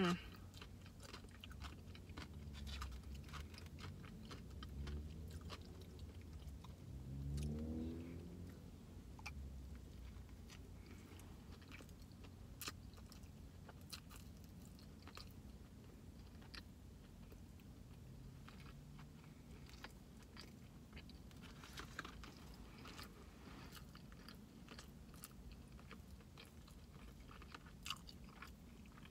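A person chewing a chicken sandwich up close: soft, wet mouth clicks and smacking, with a short rising hum about seven seconds in.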